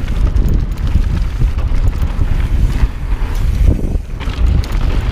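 Wind buffeting the microphone while riding a downhill mountain bike at speed: a loud, uneven low rumble.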